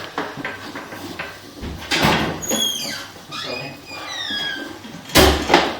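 Two groups of short, high squeaks, each falling in pitch, with a brief knock near the end.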